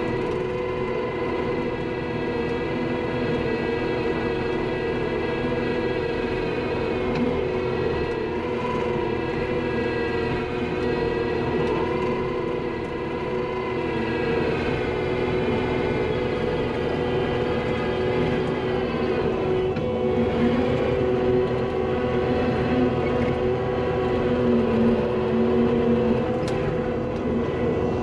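Skid steer engine and hydraulics running steadily under load, heard from inside the cab, while it drives a power rake attachment. It makes a steady whine whose pitch wavers slightly a few times.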